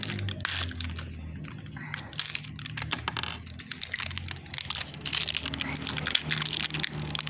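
Small plastic candy packaging being handled and pried open by hand: a dense run of quick small clicks and crinkles, over a faint low steady hum.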